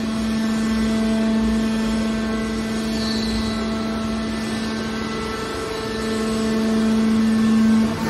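Hydraulic aluminium scrap metal baler running: a steady mechanical hum with higher overtones that grows louder toward the end and drops sharply just before it finishes.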